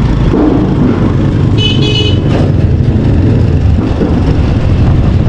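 Steady low rumble of wind on the microphone and street traffic while riding a bicycle, with a short, high-pitched horn toot about a second and a half in.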